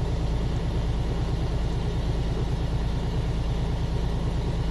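Semi truck's diesel engine running steadily at a raised idle, its RPM held high by a forced-regen device: the truck is doing a forced regeneration of its diesel particulate filter.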